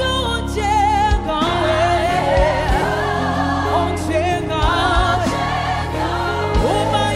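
Gospel music: a choir singing with vibrato over deep, held bass notes.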